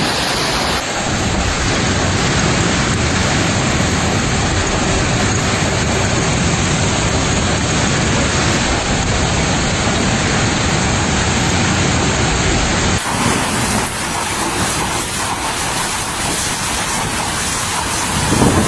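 A heavy hailstorm: hail and rain pelting down hard in a dense, steady hiss. The sound changes abruptly twice.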